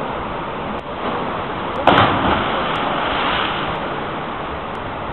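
A person jumping off the rocks into the sea makes one loud splash about two seconds in, fading over about a second. Underneath is a steady rush of wind and water.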